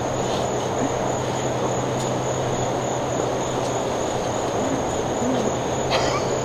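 Steady insect chorus, a constant high-pitched trill, over an even background hiss and a low hum, with a brief soft rustle near the end.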